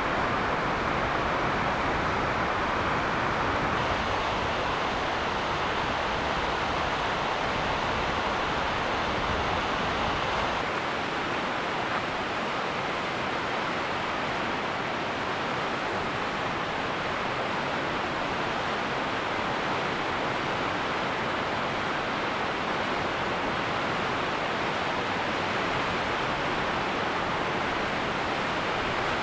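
Steady rush of a mountain stream over rocks. A low rumble underneath drops away about eleven seconds in.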